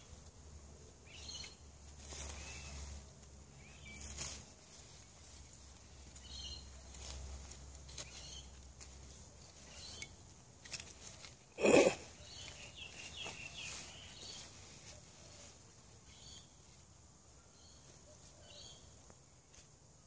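Faint rustling and scraping of hands digging through loose garden soil and potato plants, with a few faint bird chirps. About twelve seconds in there is a single short, loud thump.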